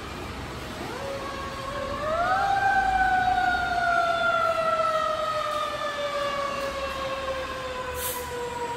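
Fire engine siren winding up about a second in, then falling slowly in pitch and fading as the truck drives away.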